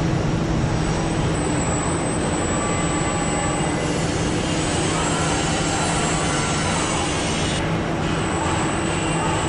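Steady factory-floor machinery noise from an electric-motor assembly line with industrial robots and conveyors: a continuous rumble with a low hum and a faint high whine. The mix shifts about four seconds in and again near the end.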